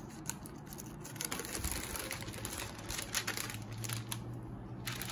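Paper wrapping rustling and crinkling as a rolled poster is unwrapped by hand. The crinkling is densest from about a second in, eases off, then comes back briefly near the end.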